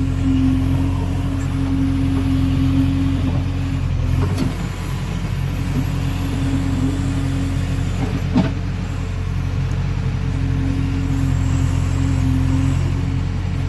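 JCB 3DX backhoe loader's diesel engine running steadily under hydraulic load while the backhoe digs, heard from inside the cab. There are two sharp knocks, about four and eight seconds in.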